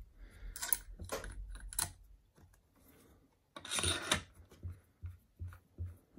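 Steel drawbar being slid into the bore of a W12 milling spindle and turned: a few light metal clicks, a louder scraping rub near the middle, then soft regular knocks about three a second.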